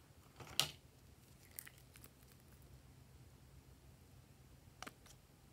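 Quiet handling of a glass nail polish bottle: one sharp click about half a second in and a smaller click near the end, over a low steady hum.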